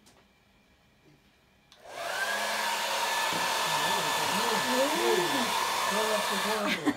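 Handheld electric hair dryer switched on about two seconds in, its motor spinning up to a steady whine over the rush of blowing air, then switched off near the end.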